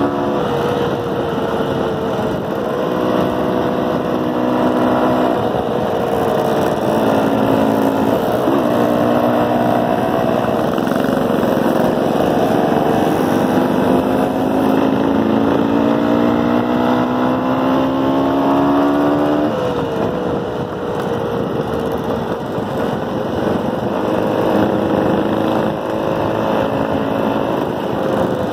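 Motorcycle engine running under way, its pitch climbing slowly and falling back several times as the throttle and gears change, with a sharp drop and pick-up about two-thirds of the way through.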